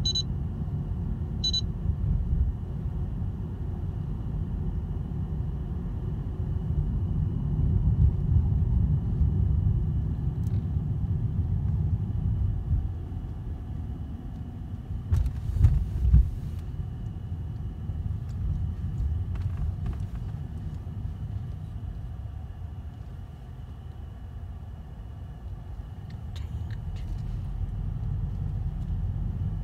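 Steady low rumble of a car's road and engine noise heard inside the cabin while driving slowly, with a brief cluster of louder bumps about halfway through.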